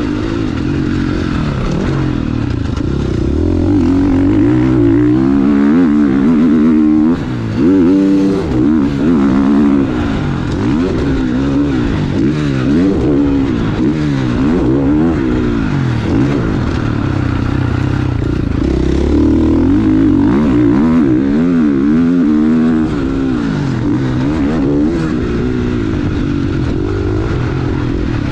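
Engine of a KTM SX-F four-stroke single-cylinder motocross bike under hard riding. Its pitch sweeps up and falls back over and over as the throttle is opened and closed around the track, with a short drop-off about seven seconds in.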